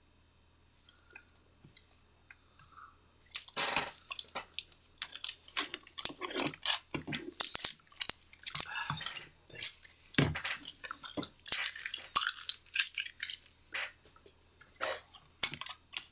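Objects being handled and moved about on a desk: a few quiet seconds, then from about three seconds in a busy, irregular run of clattering knocks and rustles.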